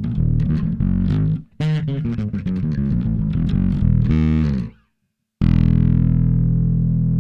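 Electric bass played through a 'Dark OD' overdrive model on a multi-effects unit. It plays a run of quick notes with a short break about a second and a half in, stops dead near the middle, then strikes one note and lets it ring, slowly fading.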